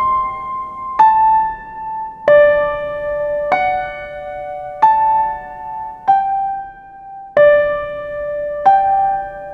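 Slow, gentle keyboard melody in the manner of an electric piano: single struck notes about every second and a quarter, each ringing on until the next.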